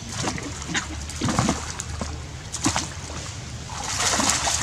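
Water splashing and sloshing as macaque monkeys swim and play in a pool: several short splashes, then a bigger, louder splash near the end as one monkey thrashes in the water.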